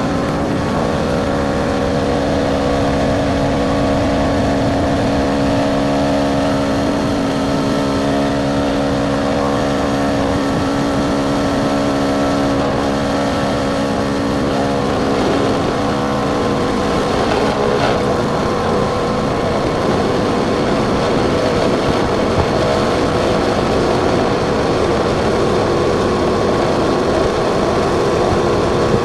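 Air Armor Special Ops single-cylinder portable air compressor running steadily, pumping up a 33-inch tire from flat, its hum changing in tone about halfway through.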